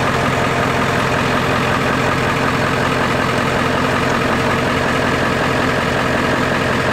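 Diesel pickup truck engine idling steadily.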